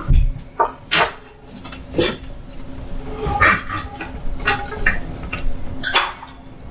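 Crockery and cutlery clinking in a string of separate knocks and taps, cups and spoons being handled as coffee is served.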